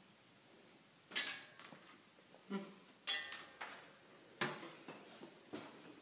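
Plastic glow-stick rings clattering as they are tossed and land: a string of about eight short, separate clacks and knocks, a few ringing briefly.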